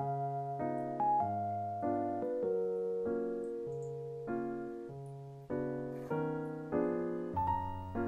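Background piano music: chords struck at a steady, unhurried pace, each ringing and fading before the next.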